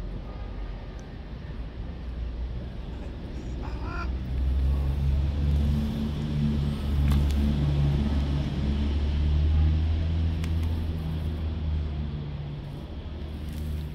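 Stray tabby cat growling: a low rumbling growl that starts about four seconds in, swells and breaks off in uneven stretches, and stops about two seconds before the end, a sign of the cat's anger at the hand reaching toward it.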